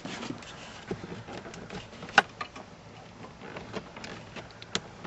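Scattered plastic clicks and rattles from a car's gauge cluster and its wiring connectors being worked by hand behind the dash, with one sharp click about two seconds in and another near the end.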